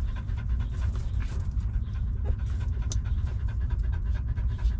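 Mother dog panting quickly and evenly with her tongue out, over a steady low rumble.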